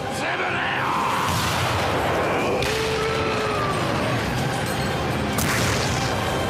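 Anime fight soundtrack: background music under a dense layer of sound effects, with a few gliding tones about halfway through and a sharp crash about five and a half seconds in.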